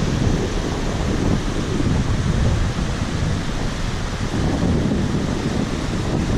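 Wind buffeting the microphone: a steady, loud rushing noise with an uneven low rumble.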